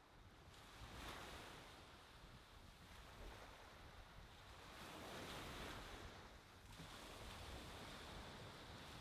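Faint ocean surf washing up on a sandy beach. It swells about a second in and again around five seconds.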